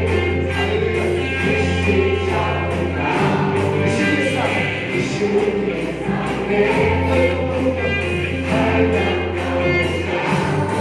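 Live gospel worship music from a band with drums, electric guitars and bass, with a group of voices singing together. The bass holds long low notes lasting about three seconds each, and the drums keep a steady beat.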